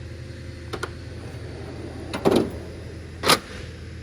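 Tool box drawers of a Snap-on roll cab being worked: a light click about a second in, a drawer sliding on its runners a little after two seconds, and a sharp metal clunk of a drawer shutting near the end.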